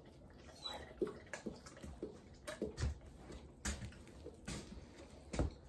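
A dog chewing and smacking a small wet treat, making soft clicks and smacks, then footsteps of rubber boots on the floor mat, about one step a second.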